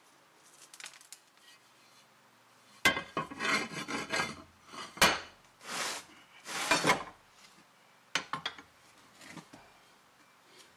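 Rusty cast-iron book press parts handled on a wooden workbench: sharp metal clanks and knocks, with scraping as the heavy parts are dragged and shifted across the bench boards.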